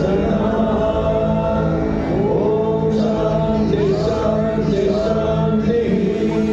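Devotional show music: choir-like chanting voices over sustained held notes, played loud and steady.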